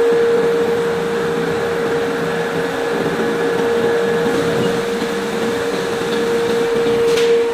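Steady machinery hum with one strong, even tone, typical of an air hammer's motor and compressor running between blows. There is a single sharp knock about seven seconds in.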